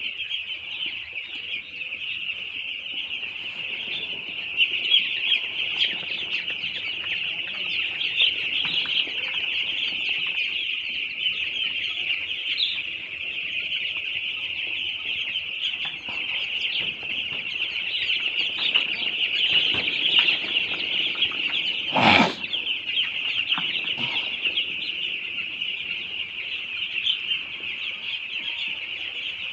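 A large flock of young broiler chickens peeping continuously in a dense, high-pitched chorus, with one sharp knock about twenty-two seconds in.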